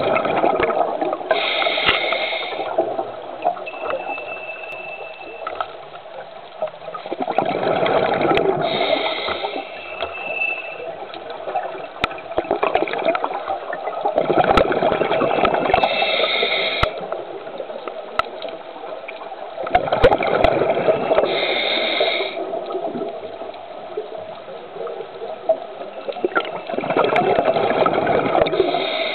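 Scuba diver breathing through a regulator underwater: the bubbles of each exhaled breath gurgle in slow cycles about every six to seven seconds, each with a short high hiss near its end.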